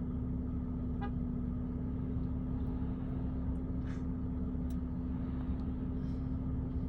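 Steady engine drone holding one low pitch over a low rumble, with a couple of faint clicks.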